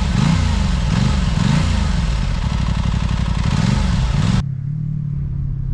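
Aprilia Tuono 660's parallel-twin engine running on the move with wind noise, its pitch rising and falling repeatedly. A little over four seconds in, the sound cuts abruptly to a steadier low hum.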